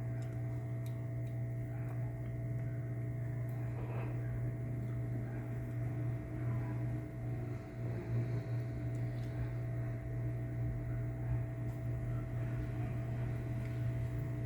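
Hot air rework station's blower fan running with a steady hum while the station heats up.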